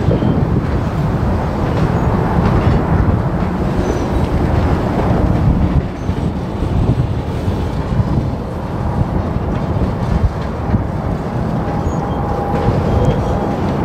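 Covered hopper freight cars rolling slowly past, their steel wheels rumbling steadily on the rails, with a faint thin squeal coming in near the end.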